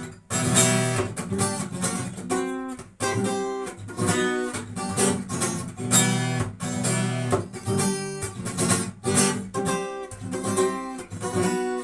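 Acoustic guitar strumming chords in a steady rhythm: an instrumental break in the song, with no singing.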